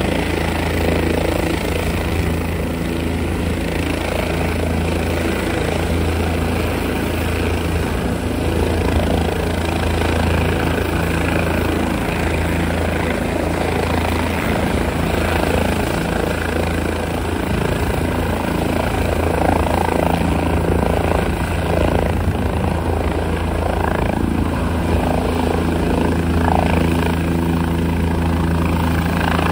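Air-ambulance helicopter running with its rotor turning, giving a steady low rotor beat and turbine noise. It lifts off near the end.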